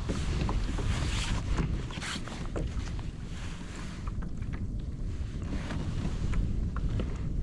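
Wind rumbling on the microphone aboard a fishing kayak, with water against the hull and a few faint clicks.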